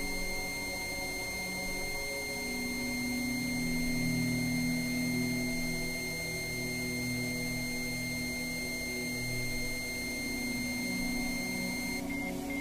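Healing-frequency meditation music: several steady pure sine tones held high above a soft, low drone that slowly swells and fades. Near the end the highest tones cut off and one upper tone starts pulsing on and off.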